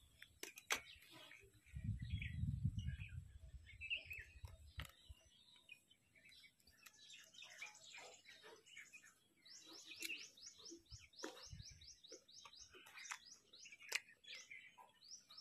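A bird chirps a quick series of short, high, downward-sliding notes, about three or four a second, in the second half. Throughout, there are soft scattered crunches of raw guava being chewed. A brief low rumble comes a couple of seconds in.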